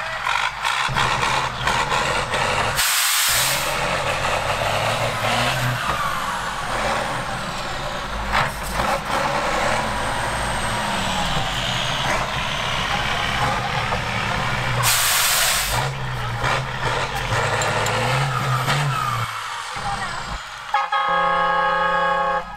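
Eight-wheeled off-road trial truck's engine labouring and revving as it climbs through mud, its pitch rising and falling. There are two short bursts of hissing air, about three seconds in and again about fifteen seconds in, and a steady horn blast near the end.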